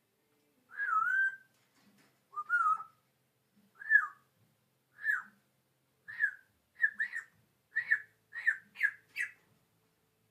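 African grey parrot whistling a series of about ten notes. The first two are longer and wavering, and the rest are short down-slurred whistles that come faster and closer together toward the end.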